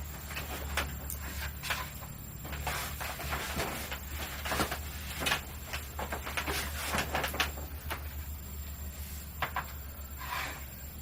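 Irregular short rustling and scraping noises over a steady low hum.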